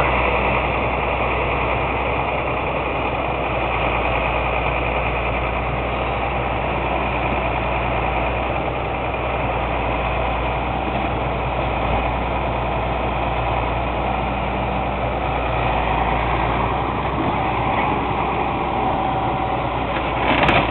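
Grapple crane truck's engine running steadily as the crane works.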